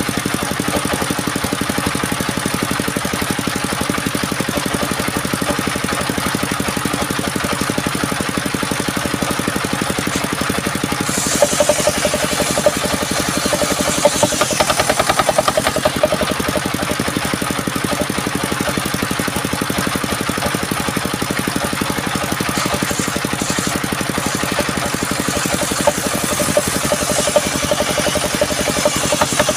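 An engine-driven sawmill machine running steadily, with a harsher, brighter stretch from about eleven to sixteen seconds in and again near the end.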